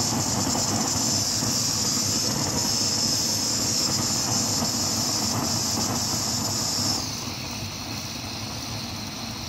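Handheld gas-cartridge blowtorch burning with a steady hiss as it heats a painted exhaust tip. About seven seconds in the hiss drops and the sound turns quieter and duller.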